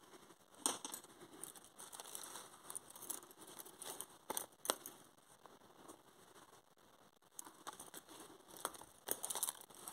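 Bobbin lace bobbins clicking softly against each other, with light rustling of threads, as they are lifted, crossed and twisted on the lace pillow. The clicks come irregularly, in small clusters.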